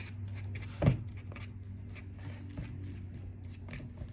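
A ripe banana being mashed in a bowl: a run of short scraping, squishing strokes, with one louder knock against the bowl about a second in.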